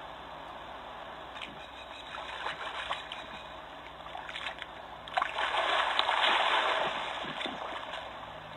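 Water splashing and sloshing as a crocodile thrashes and drags a water buffalo carcass through shallow floodwater: scattered splashes at first, then a long heavy burst of splashing about five to seven seconds in. A steady hiss from the trail camera's audio runs underneath.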